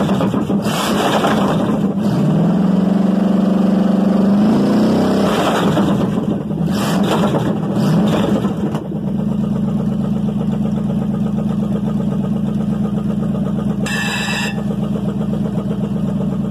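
Chevrolet 305 small-block V8 running, blipped up and down a few times with its pitch rising and falling, then settling into a steady idle from about nine seconds in. It runs smooth.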